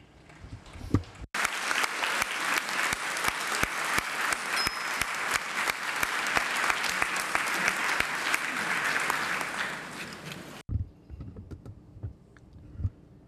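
Audience applauding, a dense clapping that starts abruptly about a second in and cuts off abruptly after about nine seconds. A few light knocks come before and after it.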